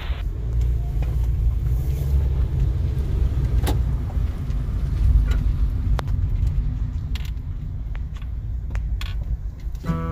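Car cabin noise while driving slowly: a steady low engine and road rumble, with a few light clicks.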